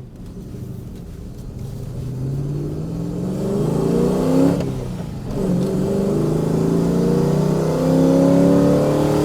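Rover SD1 Vitesse's V8 engine pulling under acceleration: the note rises, falls away briefly about halfway, then climbs again. The engine is down on power and runs rough, which the owner puts down to a misfire, sounding like it is running on seven cylinders.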